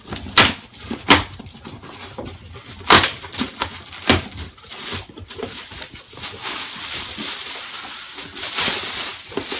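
Cardboard shipping box being torn open by hand: a few sharp rips and knocks of packing tape and flaps, then about halfway a longer crinkling rustle of plastic bubble wrap being pulled out of the box.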